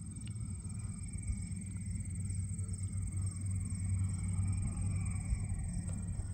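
Engine of a Bowers Fly Baby light aircraft, a low steady drone that grows gradually louder as the plane approaches.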